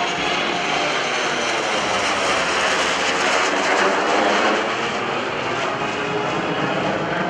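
FG-1D Corsair with its R-2800 radial engine and F/A-18C Hornet with its twin turbofans flying past together in formation: a steady, loud engine rush and hiss that swells a little around the middle.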